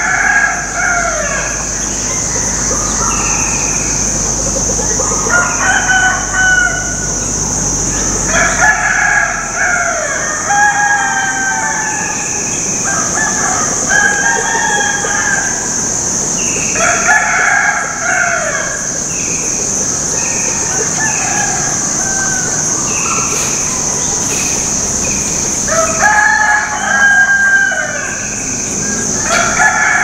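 Roosters crowing again and again, the crows a second or so long and sometimes overlapping, over a constant high-pitched drone.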